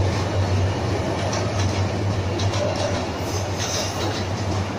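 An intercity passenger train's coaches rolling past, a steady loud rumble with scattered clacks of the wheels over the rail joints.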